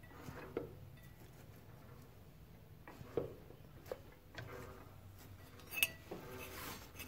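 Handling noise among the tractor's drivetrain parts: a few scattered light metallic clinks and knocks, the loudest near the end, followed by a brief rustle.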